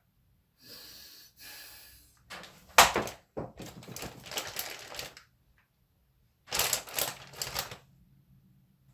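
Frozen tater tots clicking and clattering as they are handled and set into a baking dish. There is a short rustle, then two bursts of hard little clicks, the loudest a sharp knock about three seconds in.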